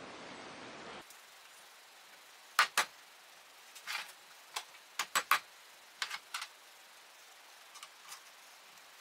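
A dozen or so sharp metal clicks and light knocks in small clusters, the loudest pair about two and a half seconds in, as the parts of an old AC shunt motor are handled and fitted together. A steady hiss in the first second stops abruptly.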